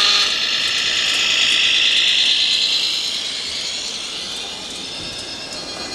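Radio-controlled Volvo model truck's electric drive whining as it passes, the high whine falling in pitch and fading from about halfway through as it moves away.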